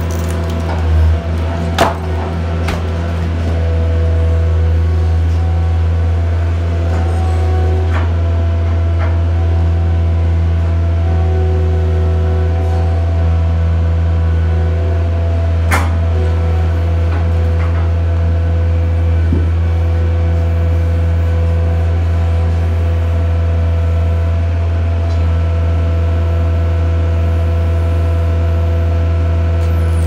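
Skid steer engine running steadily at a constant speed, with a few knocks in the first three seconds and one sharp click about halfway.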